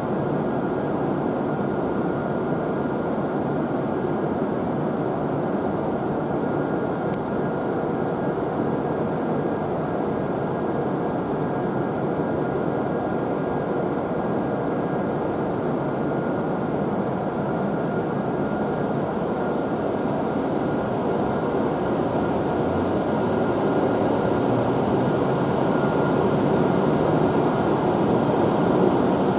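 E7 series Shinkansen train humming steadily at the platform, growing louder over the last several seconds as the out-of-service train starts to pull away.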